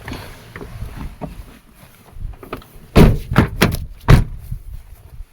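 Doors of a 2002 Toyota Land Cruiser being shut: a quick run of heavy thuds about three seconds in, the last, a little after four seconds, the loudest.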